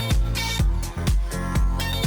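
Disco-funk dance music with a steady four-on-the-floor kick drum, about two beats a second, under a bass line and sustained chords, with no singing.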